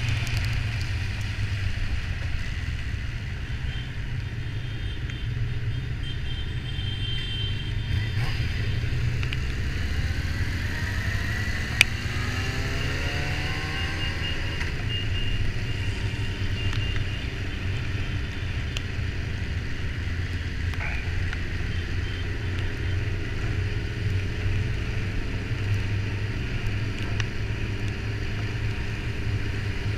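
Motorcycle engine running with a steady low rumble, its note rising and then falling about ten to fifteen seconds in. A single sharp click comes about twelve seconds in.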